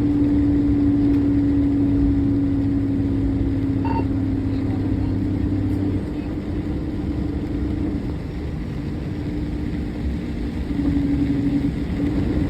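Vehicle engine running with a steady drone. About six seconds in, it eases and becomes uneven, and a brief high blip is heard around four seconds in.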